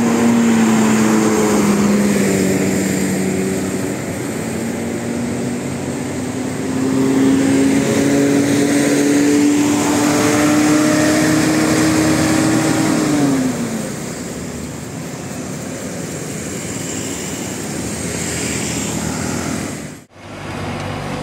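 Bus engine running with a steady pitched drone. Its pitch dips, then climbs slowly for about ten seconds as the bus accelerates, and falls away about 13 seconds in. The sound cuts off abruptly near the end.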